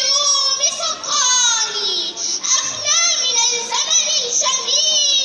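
A young girl singing solo, holding long wavering notes and sliding between them, with short breaks for breath.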